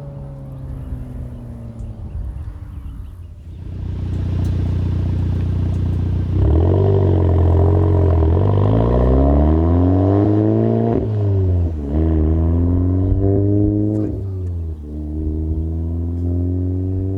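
Volkswagen Golf R's turbocharged 2.0-litre four-cylinder through an AWE SwitchPath exhaust. The engine note falls away for a few seconds, then the car accelerates hard, its pitch climbing, dropping sharply at two upshifts, one about halfway through and one near the end, and climbing again after each.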